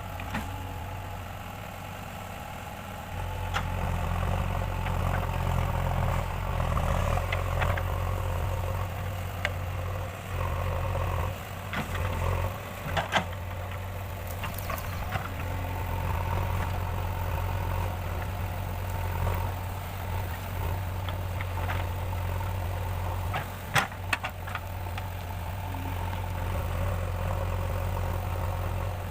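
JCB 3DX backhoe loader's diesel engine running steadily with a low hum, working harder from about three seconds in, with a few sharp knocks along the way.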